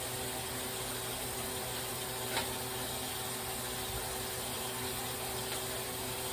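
Steady machine hum and hiss, unchanging, with a single click about two and a half seconds in.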